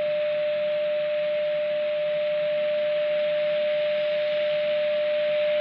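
Grundig 2147 valve radio's loudspeaker playing a steady mid-pitched test tone with hiss behind it. This is a signal generator's modulated test signal, received on medium wave while the radio's front end is being tuned for peak response during AM alignment.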